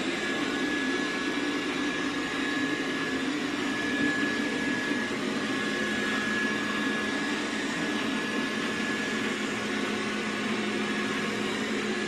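Xiaomi S10+ robot vacuum running as it cleans a hard floor: a steady whir of its suction fan and brushes with a thin high whine held throughout.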